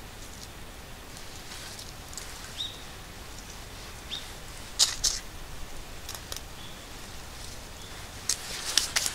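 Split kindling sticks clicking and knocking against each other as they are laid by hand onto a small fire just lit from wood shavings, with one sharp knock about five seconds in and a cluster of clicks near the end. A few faint, short high chirps are heard in between.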